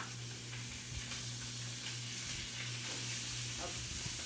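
Fish frying in olive oil in a nonstick pan, a steady sizzle over a steady low hum.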